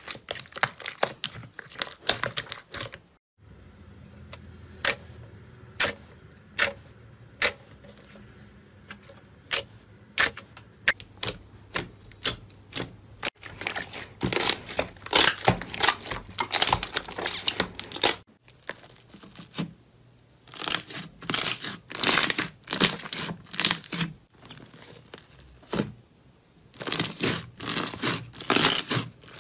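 Hands squeezing and kneading slime, making sharp clicks and pops as pockets of air in it burst. The pops come singly and spaced out for a while, then in dense crackling runs.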